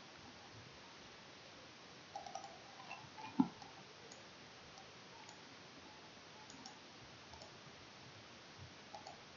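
A few computer mouse clicks over a faint steady hiss. The clicks come in small clusters, with the loudest about three and a half seconds in and a couple more near the end.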